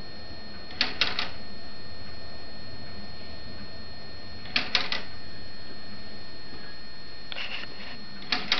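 Plastic model clock escapement with a balance wheel ticking: four short clusters of two or three quick clicks each, the clusters a few seconds apart, the third one fainter.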